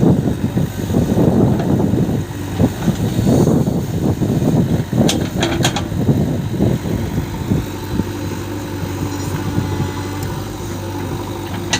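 JCB 3DX backhoe loader's diesel engine running while it works, with three sharp clicks about five seconds in. It settles to a steadier, slightly quieter run for the last few seconds.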